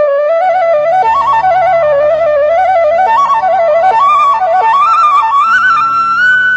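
Bansuri (Indian bamboo flute) playing a slow, ornamented melody with quick turns that climbs and settles on a long held high note near the end, over a low steady drone.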